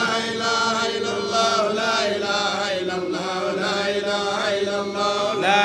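Congregation of men chanting dhikr together, a slow melodic chant whose pitch rises and falls without a break.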